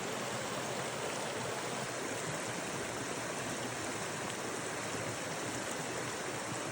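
Mountain creek water rushing and burbling over rocks, steady throughout.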